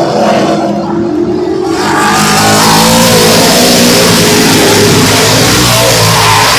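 Pack of Late Model Sportsman stock cars racing around an oval, their V8 engines running hard at full throttle, with the engine note rising and falling as cars sweep past.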